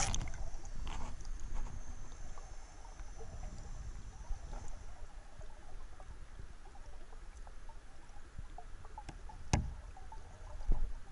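Muffled underwater sound picked up by a submerged camera in a river: a steady low rumble with scattered faint clicks, a loud burst right at the start, and a sharp knock about nine and a half seconds in, with a smaller one shortly after.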